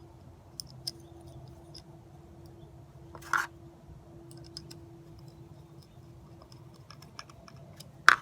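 Small screws being driven into a metal bracket by hand: scattered light clicks, a brief scrape about three seconds in, and a sharper click near the end.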